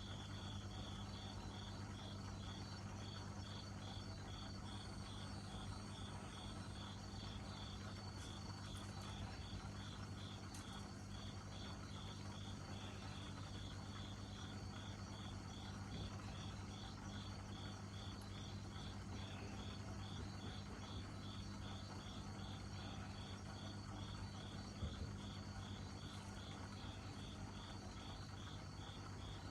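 A cricket chirping steadily in an even, unbroken rhythm of short high chirps, over a low steady hum.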